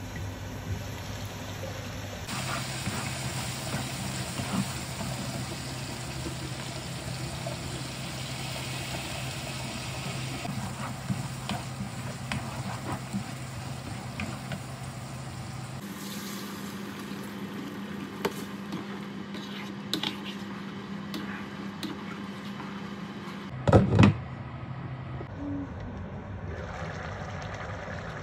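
Liver curry simmering and sizzling in a nonstick wok, with a spatula stirring through it and a steady low hum underneath. A couple of sharp knocks come a few seconds before the end.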